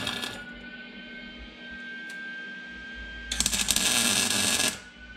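Lincoln Easy-MIG 140 MIG welding arc crackling in short stitch welds on thin sheet metal. One weld cuts off just after the start, and a second runs for about a second and a half from about three seconds in. A faint steady high tone continues underneath.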